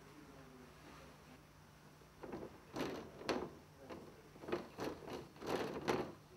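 Wet paint being smeared across a smooth, glossy surface with a flat spreading tool: a run of about seven short scraping strokes, starting about two seconds in and stopping about six seconds in.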